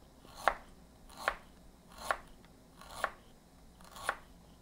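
A cleaver slicing through a peeled ginger root on a cutting board: five slow, even cuts about one every 0.8 seconds, each a short knock of the blade meeting the board.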